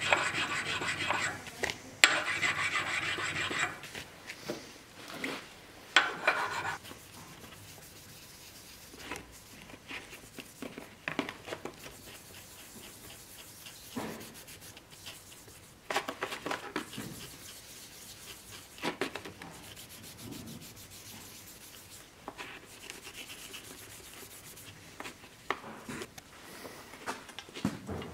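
A hand file rubbing in quick strokes across a steel sword cross-guard held in a vise for the first few seconds. After that come scattered, quieter rubbing strokes on the steel fittings.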